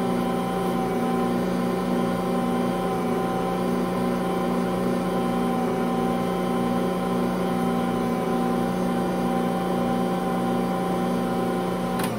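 Ankarsrum stand mixer running steadily, its motor humming as the stainless steel bowl turns bread dough against the roller and scraper. It switches off with a click at the very end.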